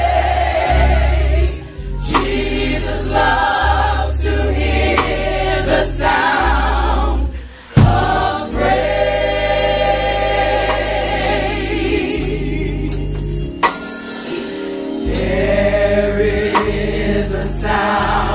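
Gospel choir singing in harmony over band accompaniment with a deep, sustained bass line. The music drops out briefly about halfway through, then comes back in with a sharp loud hit.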